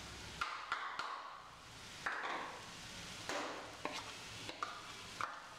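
Steel spoon tapping and scraping against a bowl and the steel pan as paste and spice powders are knocked into the vegetables, about eight light clinks, some with a short ring.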